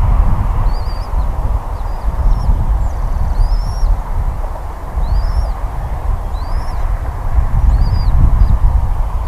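Low, buffeting wind rumble on the microphone. Over it, a bird gives a series of short, high, arching chirps, about one a second.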